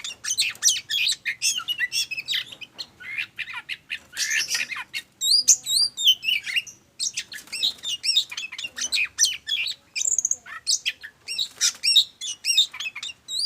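Oriental magpie-robin singing a long, varied run of rapid chirps, trills and swooping up-and-down whistles, with a few brief pauses.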